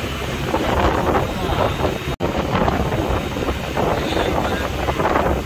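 A fishing boat's engine runs steadily at sea, with wind buffeting the microphone. The sound cuts out for an instant about two seconds in.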